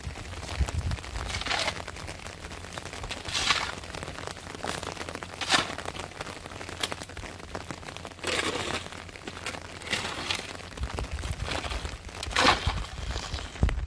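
Shovel blade scraping and scooping wet, gravelly mud, with a stroke about every two seconds.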